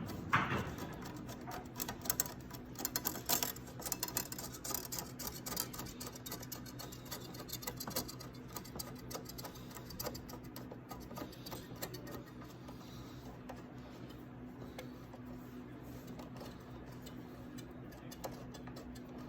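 Quick, irregular ticking clicks of a large hose clamp being tightened by hand, thinning out about halfway through, over a steady low hum.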